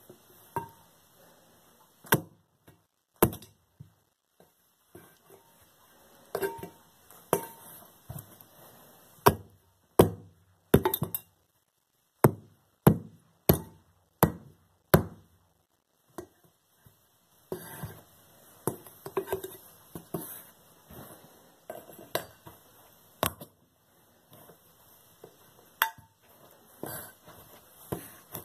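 Boot heels stamping on a silver-plated teapot, denting it: a long series of sharp metallic knocks at irregular intervals, often about a second apart.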